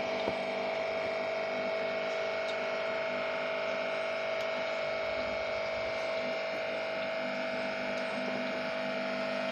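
Aquarium air pump and filter equipment humming steadily at one constant pitch, with a single small click just after the start.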